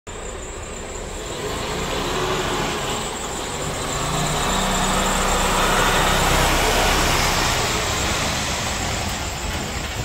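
2015 Mercedes Arocs 8x4 concrete mixer truck driving slowly past, its diesel engine running under a broad wash of tyre and road noise. The sound grows to its loudest about six seconds in as the truck passes, then fades.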